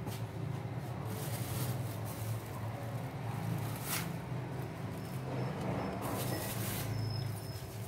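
A steady low hum, with a sharp click about four seconds in and a stretch of rustling near the end.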